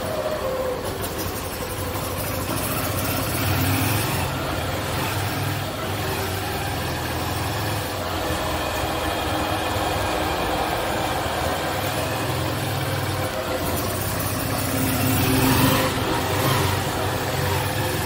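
Motorcycle engine running at low riding speed inside a concrete parking garage, its note swelling a few times as the throttle opens, with several stretches of hiss over it.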